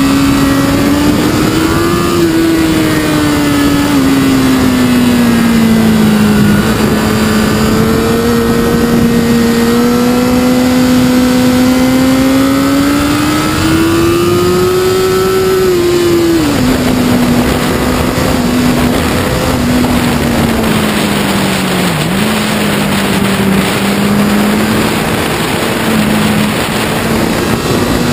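Sport motorcycle engine running at road speed, its pitch rising and falling with the throttle through the bends, with a sudden drop in pitch a little past halfway. Wind noise on the bike-mounted microphone grows in the second half.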